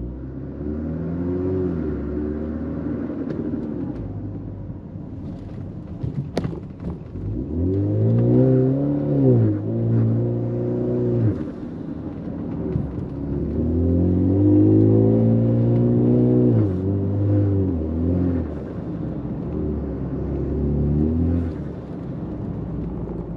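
Ford Fusion accelerating on a road test. The engine note rises and falls several times as it pulls away and shifts, and there is one sharp click about six seconds in. The drive is a test for bearing noise from the rear differential and the transfer case.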